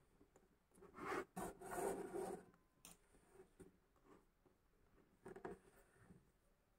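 Thread being pulled through stitching holes in leather during hand stitching: a rasping draw lasting over a second from about a second in, a sharp tick near three seconds, and a shorter draw about five seconds in.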